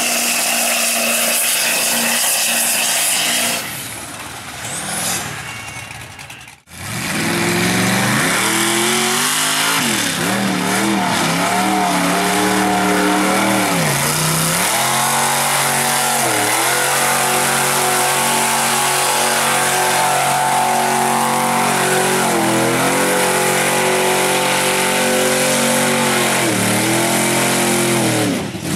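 Mud-bog trucks on tractor tires running hard through deep mud, their big engines revving high, the pitch sagging and climbing again and again as the throttle is worked. A hiss of mud slings off the tires throughout. About a quarter of the way in the sound drops away briefly, then another truck's engine comes in loud.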